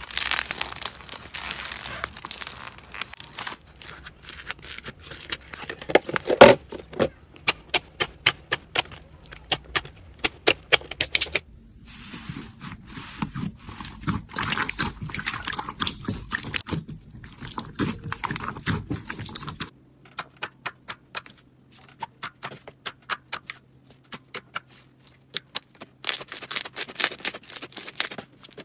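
Hands squeezing and pressing crunchy slime: quick runs of sharp crackling and popping clicks, in three short clips that break off twice.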